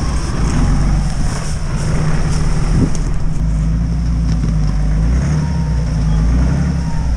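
Engine of a lifted off-road 4x4 running at low revs as it crawls over a rough forest trail: a steady, low engine note.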